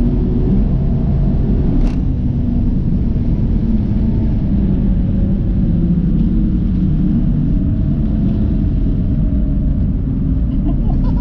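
Modified BMW M140i's turbocharged B58 straight-six driven on track, heard inside the cabin through a GoPro's built-in microphone as a steady, loud engine and road drone, its note rising and falling slightly. A short sharp click about two seconds in.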